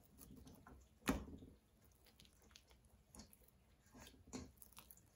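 Faint wet squishing of sticky bread dough being stretched and folded by hand in a stainless steel bowl. A dull thump about a second in is the loudest sound, followed by a few soft taps and squelches.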